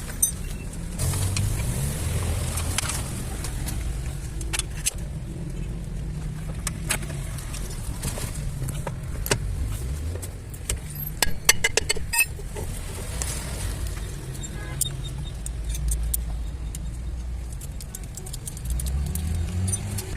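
Metal hand tools clinking and clicking during car repair work, over a low, uneven vehicle rumble. The clicks come in scattered single strikes and a quick cluster about eleven to twelve seconds in.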